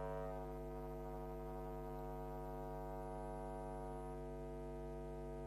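Steady electrical mains hum: a low, unchanging buzz with many evenly spaced overtones. The higher part of the buzz eases slightly just after the start.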